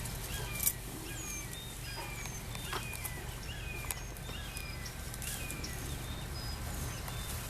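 Birds calling with many short, repeated downward-sliding chirps over a steady low rumble, with a sharp click a little under a second in.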